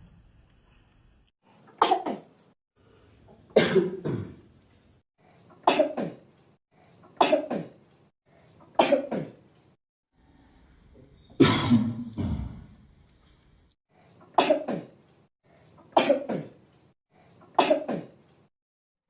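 A person coughing: nine single coughs, each sudden and quickly fading, with pauses of one and a half to three seconds between them.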